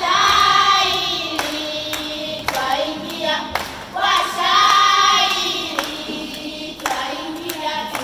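A children's choir singing a Swahili song-poem together, in long drawn-out phrases, with the loudest held notes at the start and again about halfway through.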